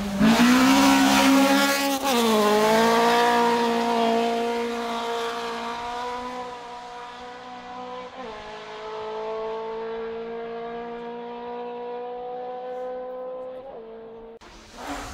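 Rally car engine at high revs passing close, its pitch falling as it goes by about two seconds in, then pulling away with a gear change past the middle and fading into the distance. The sound cuts off suddenly near the end.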